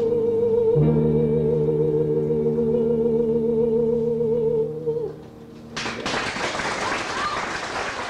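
A woman's singing voice holds a long final note with even vibrato over the accompaniment's sustained closing chord, and both stop about five seconds in. After a short pause, an audience breaks into applause near the end.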